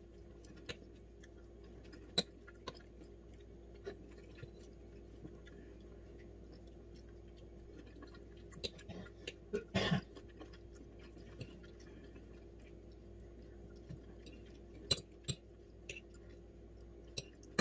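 Close-up chewing and mouth sounds of someone eating cubes of raw salmon, with scattered light clicks of a metal fork on a plate. A faint steady hum sits underneath, and one louder burst comes about ten seconds in.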